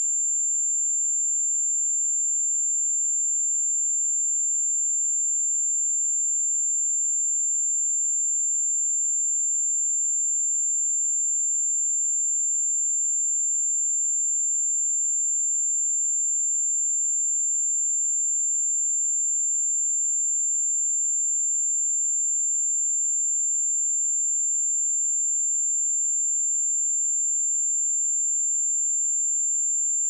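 A pure 7274 Hz sine-wave test tone, a single steady high-pitched whistle held without change.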